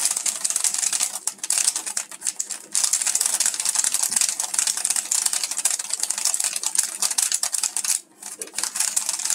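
Plastic layers of a stickerless 3x3 speed cube being turned fast by hand: a dense run of rapid clicks and clacks, with a short break about eight seconds in.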